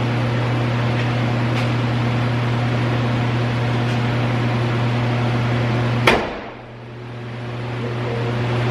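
A steady low hum, then about six seconds in a single loud slam: a pickup truck's hood being shut.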